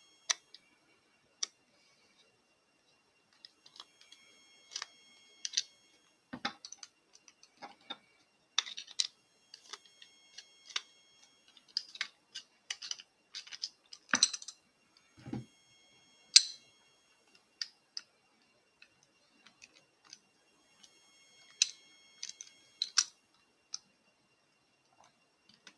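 Scattered small metallic clicks and taps, with a few duller knocks, from a Mul-T-Lock Integrator padlock being handled as its key is turned and its core is worked at. The core stays stuck in the lock body.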